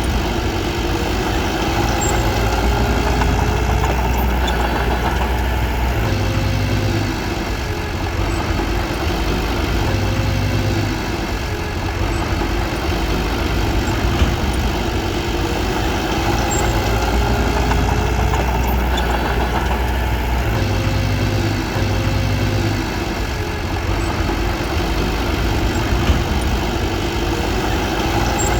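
Bulldozer's diesel engine running steadily, its note shifting a little every few seconds.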